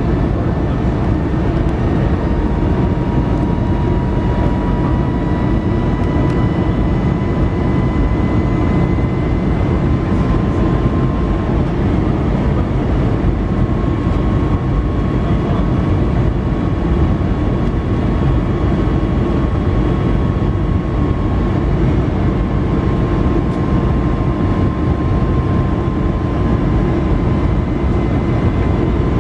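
Cabin noise of an Airbus A320 on its landing approach: the steady drone of the jet engines and airflow, with a steady engine whine that drifts slightly up and down in pitch.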